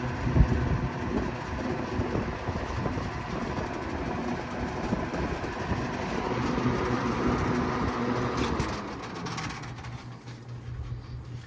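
Vintage General Deluxe (Lasko Galaxy) box fans running: a steady motor hum under the rush of air from the blades. There is a sharp knock about half a second in, and the rush drops off clearly near the end.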